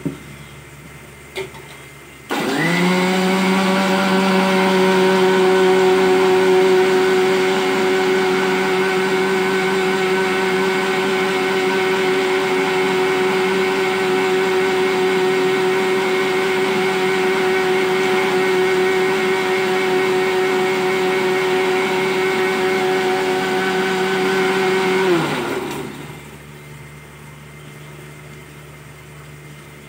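Electric mixer grinder grinding coconut with pepper and cumin in its steel jar. The motor starts about two seconds in and spins up, runs steadily at full speed for over twenty seconds, then winds down with a falling pitch when switched off.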